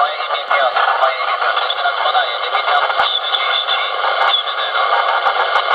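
A distant station's voice coming over a President Lincoln CB transceiver's speaker, garbled and half-buried in heavy static and interference, with the narrow, tinny sound of a radio receiver.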